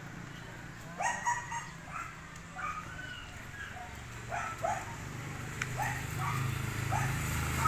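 Dog barking repeatedly: about ten short barks at an uneven pace, starting about a second in. A low rumble grows louder in the second half.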